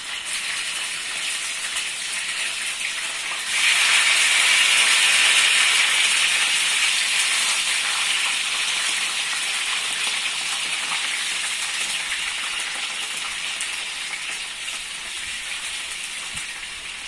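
Pieces of salted tilapia and tucunaré (peacock bass) frying in hot oil in a skillet, a steady sizzle as they are laid into the pan. The sizzle jumps louder about three and a half seconds in, then slowly eases.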